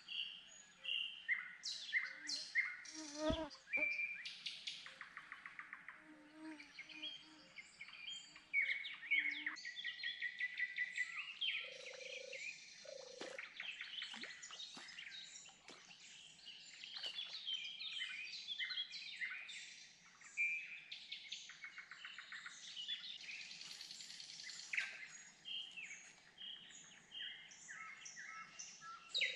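Songbirds singing in chorus: many overlapping chirps, trills and quick runs of notes, some high and some lower, throughout.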